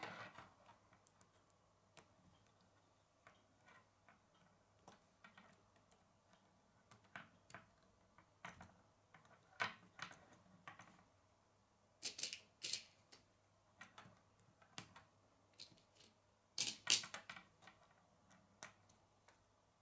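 Plastic K'nex rods and connectors clicking and snapping together by hand: irregular small clicks, with two louder clusters of snaps, one around the middle and one near the end.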